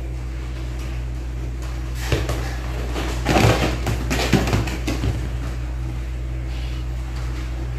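A cat leaping and scrambling on a leather sofa: a run of scuffs and soft thumps, busiest a few seconds in, over a steady low hum.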